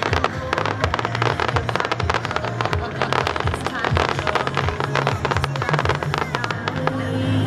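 Aerial fireworks crackling and popping in rapid, dense bursts throughout, over music with a steady bass line.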